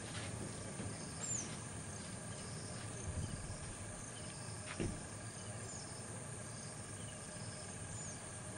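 Steady high-pitched insect drone, with a few short high descending chirps and a single sharp knock about five seconds in.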